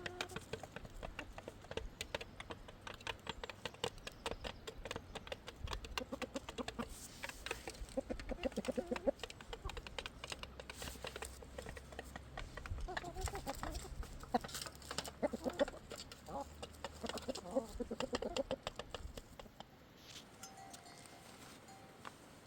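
Chickens clucking, over a dense patter of quick clicks; the clicks thin out and it goes quieter near the end.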